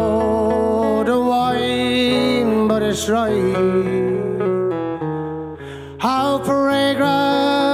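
Live Irish folk band music: a man singing to acoustic guitar and other plucked string instruments.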